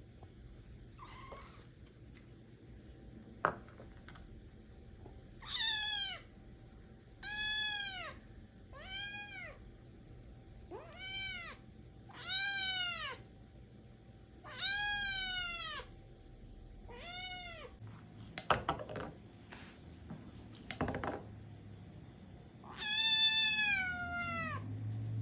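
A young British Shorthair–Munchkin kitten meows impatiently at its empty food bowl, begging to be fed. There are about eight short meows, each rising and then falling in pitch, and a few sharp clicks between them.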